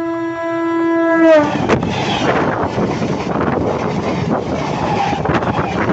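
Passing train heard from right beside the track: its horn sounds and drops in pitch as the locomotive goes by about a second in. Then a loud rushing of the carriages running past close to the microphone, with sharp clacks of the wheels on the rail now and then.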